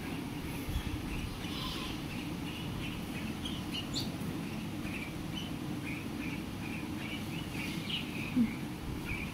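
Parrots chirping: many short chirps in quick succession, with one sharp rising whistle about four seconds in. Near the end there is a brief louder low sound, and a steady low background noise runs underneath.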